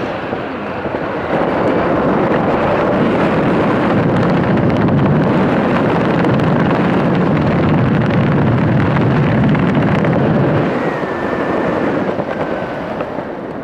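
Air rushing over the microphone of a camera in flight alongside parachutists: loud, steady wind noise that eases a little near the end.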